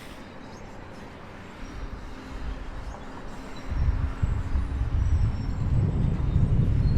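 Low engine rumble that swells sharply about three and a half seconds in, over a faint steady hum.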